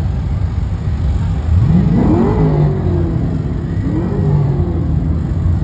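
Classic car engines rumbling as the cars roll slowly by, with one engine revved twice, rising in pitch about one and a half seconds in and again around four seconds in.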